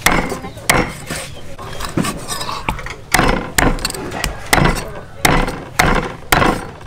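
Steel meat cleaver chopping raw chicken on a thick round wooden chopping block: a series of sharp chops, a few spaced out at first, then about two a second.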